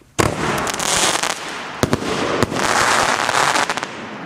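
Three-shot firework mortar tube going off, its effects a crackling fire pot and a crackling bouquet: a sudden bang about a fifth of a second in, then dense crackling, two sharp reports around two seconds in, and a second spell of dense crackling that dies down near the end.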